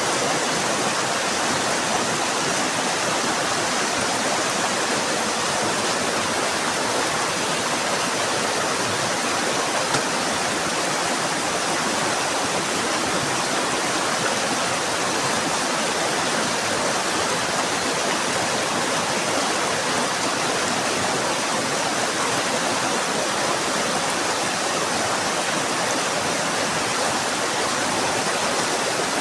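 Rushing mountain river: the steady, even roar of fast water running over rocks.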